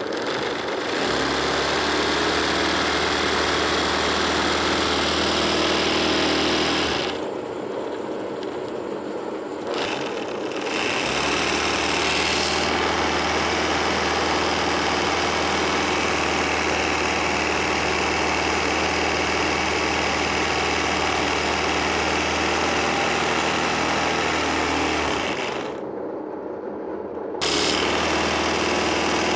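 Sewing machine running steadily as it stitches free-motion embroidery on fabric held in a hoop. Its sound drops away briefly twice, about a third of the way in and near the end.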